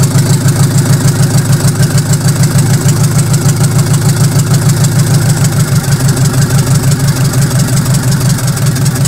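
Nissan FD35 four-cylinder diesel engine, overhauled and running on its own out of a vehicle, idling steadily with an even, rapid pulse.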